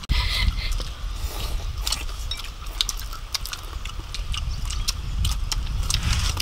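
Irregular crisp clicks and crunches of people biting and chewing battered fried shrimp, over a steady low rumble.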